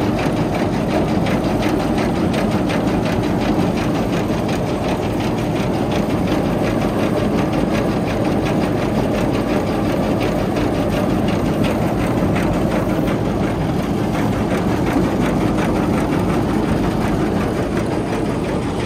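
Tractor engine running steadily and powering a KSA 756 DB straw reaper, a continuous machine drone with a fast, even chatter.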